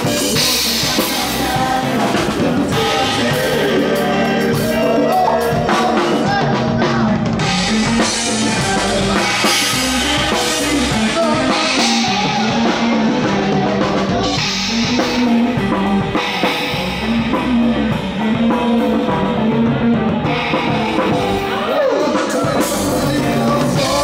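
Rock band playing live, heard from right beside the drum kit: drums and cymbals loud, with electric guitar and a voice singing.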